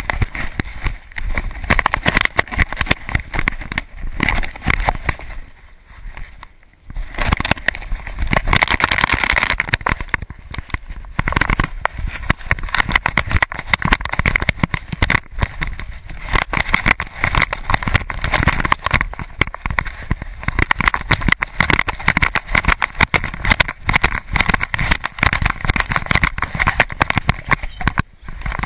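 Loud handling noise from a GoPro camera in its housing strapped to a dog playing in snow: rapid, irregular knocks and rustling, easing off briefly about six seconds in.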